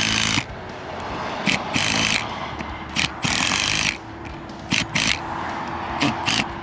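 Cordless impact driver driving lag bolts through a solar deck mount into the roof decking. It runs in several short bursts under a second each, with short clicks between them.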